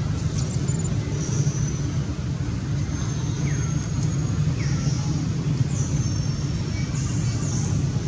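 A steady low rumble, with faint high bird chirps and a few short clicks over it.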